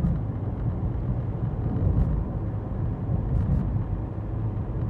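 Car driving along a road: a steady low rumble of engine and road noise, with a couple of faint clicks.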